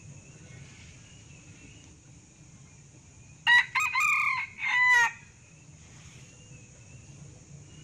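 Male Sumatran red junglefowl crowing once, about three and a half seconds in: a short three-part crow of about a second and a half, the middle part the longest.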